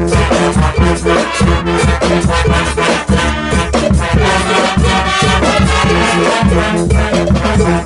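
A Guggenmusik band playing loudly: trombones, trumpets and sousaphone over a steady drum beat.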